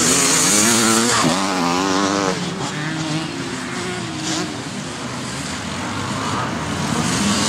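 Evo-era motocross bike engine revving hard through a corner and pulling away, its pitch rising and falling with the throttle before fading. More bikes' engines are heard farther off, getting louder near the end as the next riders approach.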